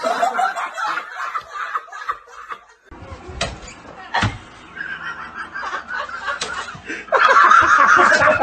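People laughing, snickering and chuckling. The sound changes abruptly about three seconds in and is loudest near the end.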